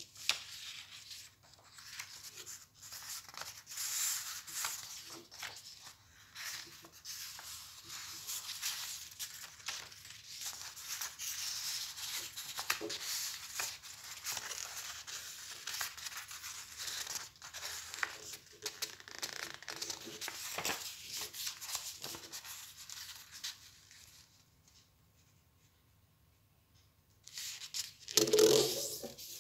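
Sheets of paper being handled and folded: a steady crisp rustling and rubbing with small crackles as the folds are creased. It goes quiet for a few seconds near the end, then a louder burst of rustling follows.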